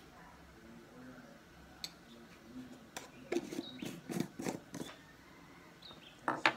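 Plastic jar of seasoning powder being handled with a spoon: small clicks and knocks, a quick run of them a little past the middle and another pair near the end.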